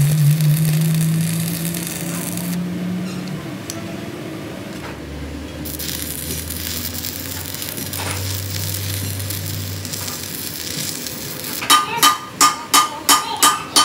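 Stick (arc) welding on a steel axle flange, filling the old bolt holes with weld: the arc crackles and sizzles steadily over a low hum. Near the end the welding stops and a hammer strikes the metal flange rapidly, about three blows a second.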